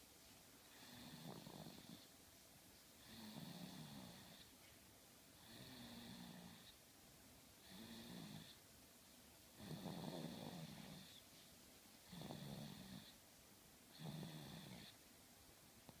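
A sleeping baby snoring faintly: seven short snores, one with each breath, about two seconds apart.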